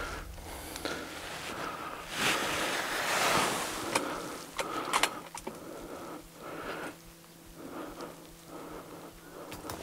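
Wind rushing through the bush, swelling for a couple of seconds about two seconds in, with a few sharp clicks and rustles.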